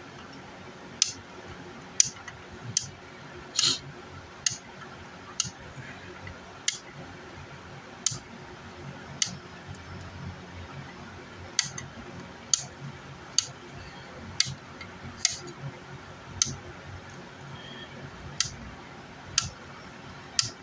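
Sharp single clicks at an uneven pace of about one a second: flush cutters snipping the leads of newly soldered components on a circuit board.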